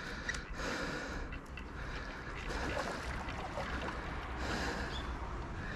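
A man breathing hard in and out, a few heavy breaths, from the strain of playing a hooked carp on a rod.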